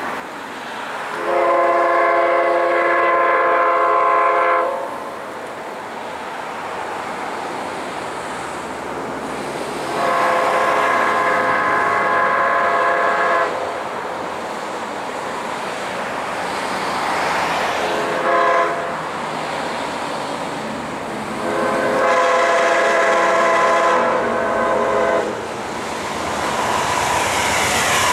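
Amtrak GE P42DC locomotive's multi-tone air horn blowing the grade-crossing signal: long, long, short, long. Near the end the train's running noise grows louder as it arrives.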